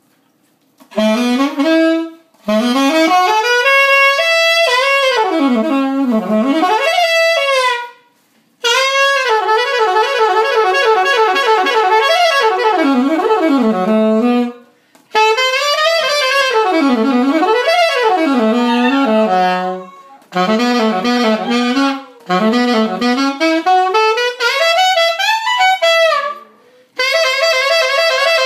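Alto saxophone playing a blues, in phrases of several seconds broken by short pauses, with sliding, bent notes; near the end it holds one long steady note.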